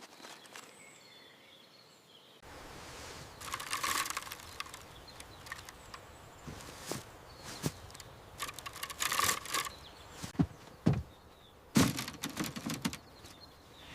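Outdoor ambience with bursts of rustling and several sharp knocks near the end, and faint bird chirps in the first couple of seconds.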